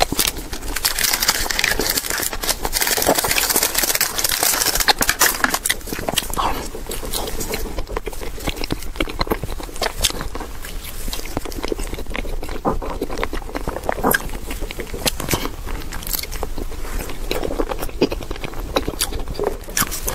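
Close-miked eating sounds: for the first few seconds a clear plastic tray crinkles and crackles as a mochi is lifted out, then soft, sticky bites and chewing of a purple mochi with a runny grape filling, with many small wet mouth clicks.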